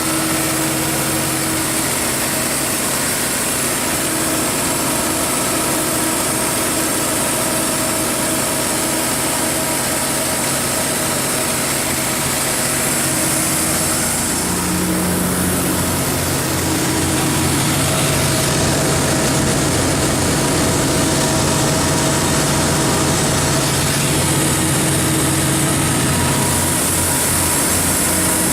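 Cummins QSB7-G5 six-cylinder diesel engine of a 200 kW generator set running steadily at constant speed; its tone shifts slightly about halfway through.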